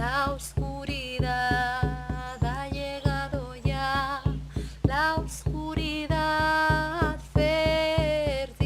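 Song: a voice singing long held notes with vibrato over a steadily plucked guitar accompaniment, about three or four strokes a second.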